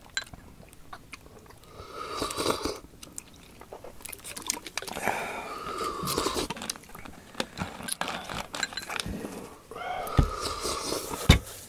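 Close-miked eating of boiled organ meat and broth: chewing and slurping, with small clicks of a spoon against a china bowl. Near the end come two dull knocks.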